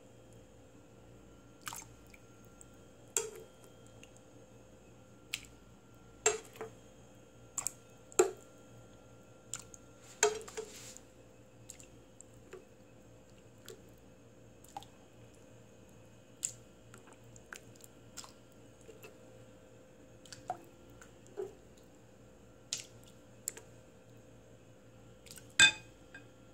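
Metal kitchen tongs clicking against a pan and wet chicken pieces squishing and dripping as they are lifted out of hot water and dropped into a glass bowl of cold water. The clicks and splashes come irregularly, some a little ringing, with one louder cluster near the end.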